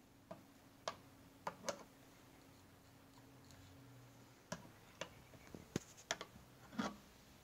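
Faint, irregular clicks and taps of a metal spoon knocking against a clear container and a ceramic bowl while shaving foam is scooped from one to the other.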